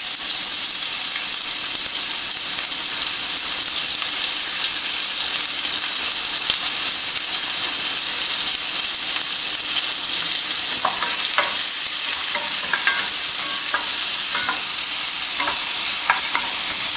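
Sliced red onions frying in hot oil in a stainless steel pan: a steady, loud sizzle. From about ten seconds in, a wooden spoon stirring the onions adds light scraping clicks over the sizzle.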